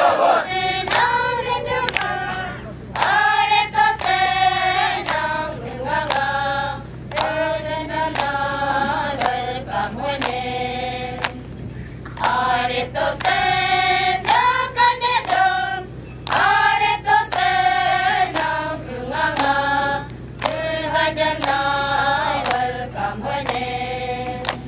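A group of women singing a song together, in phrases with short breaks, keeping time with steady handclaps.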